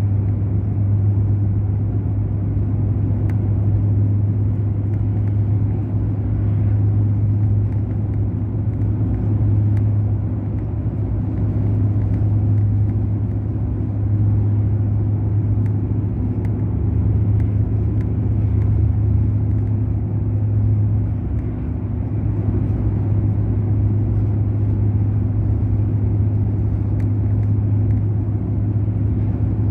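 Mercedes-Benz O500 RSD BlueTec5 bus's diesel engine running at steady revs, a deep even drone that holds one pitch throughout.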